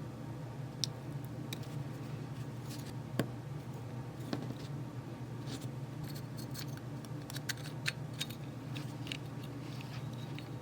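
Irregular light clicks and taps of small parts and tools being handled while a handheld radiation detector is taken apart. They come more thickly in the second half, over a steady low hum.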